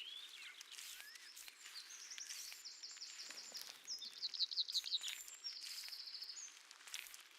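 Faint birdsong: several short, high, rapid trills of quickly repeated notes, with a few thin chirps near the start, over a soft outdoor hiss.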